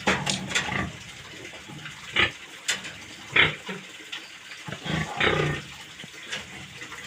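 Pigs grunting and snorting now and then in their pen, with a few short calls spread through the stretch.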